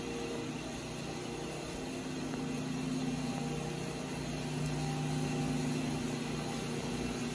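Steady machinery hum, a few low steady tones over a faint hiss, growing slightly louder midway.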